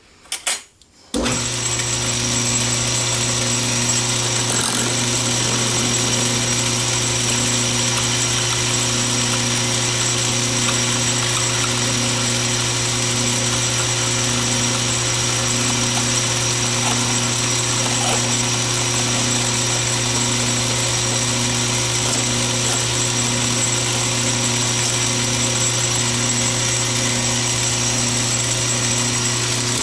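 Atlas 618 bench lathe switched on after a click about a second in, then running steadily with a hum, a high whine and a soft beat about once a second, while a brass oil-cup blank is parted off.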